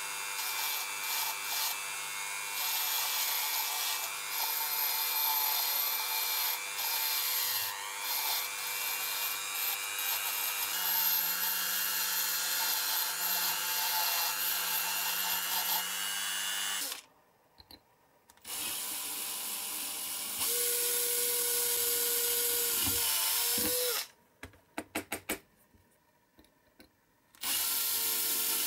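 Dremel rotary tool drilling out the rivet post of a diecast zinc-alloy toy car base, a steady whining run of about 17 seconds. After a short stop the tool runs again. Near the end a Bosch cordless drill runs in a few short blips, then steadily, drilling into the same metal base.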